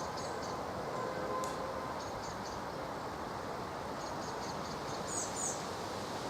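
Steady hiss of falling rain, with a small bird's short, high chirps in quick runs of four or five notes repeating through it and a brief higher twitter about five seconds in.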